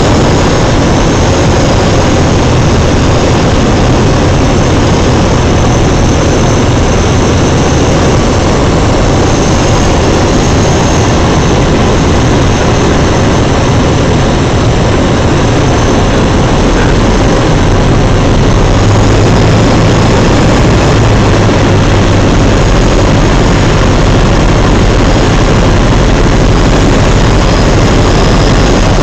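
Piper Cherokee's piston engine and propeller heard from inside the cockpit on landing approach, a loud steady drone; the engine note drops lower about seventeen seconds in.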